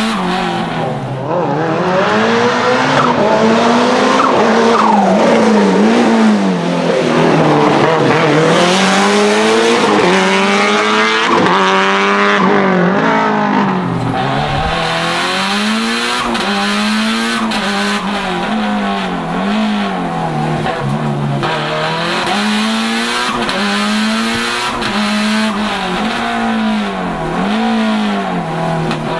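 Tuned 500 hp Lancia Delta HF Integrale Evo 2's turbocharged four-cylinder engine driven hard, its revs climbing and dropping again and again through acceleration, braking and gear changes.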